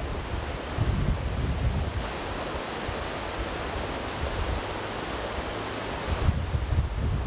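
Floodwater rushing in a swollen stream, a steady, even wash of noise. Wind buffets the microphone in the first couple of seconds and again about six seconds in.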